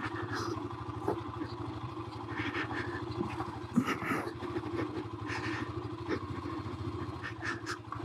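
Royal Enfield Himalayan's single-cylinder engine running steadily under load in first gear on a rough dirt trail. Scattered clicks and knocks come from the rocky ground, the sharpest about four seconds in.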